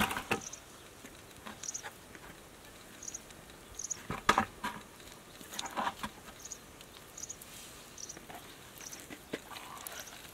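Bare hands digging in wet mud: irregular squelches and slaps as clumps are pulled up and dropped, loudest near the start and again about four and six seconds in. Faint short high chirps repeat about once a second underneath.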